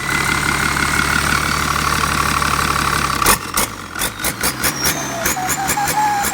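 Holset HX35 turbocharger on a running engine, giving a steady whine, the 'singing' turbo hiss. About three seconds in there is a sudden loud crack, then quick sharp pulses several times a second, with a new, higher whistle rising and falling over them.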